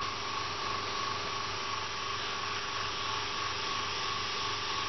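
Iwata Neo airbrush hissing steadily as it sprays paint, over a steady low hum.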